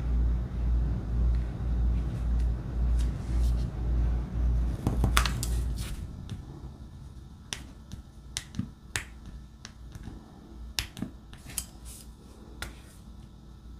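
A low rumble pulsing about twice a second, which dies away about five seconds in. Then come scattered sharp clicks of a diamond painting placer pen tapping resin drills onto the sticky canvas.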